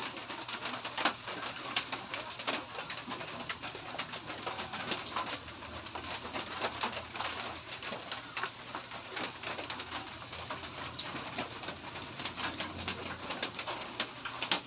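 Close-up eating sounds: a person chewing and smacking a mouthful of noodles and rice, with many small wet clicks from the lips and mouth.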